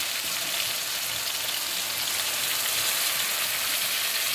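Sautéed canned tuna, onion and tomato sizzling steadily in hot oil in a pan as about a cup of water is poured in.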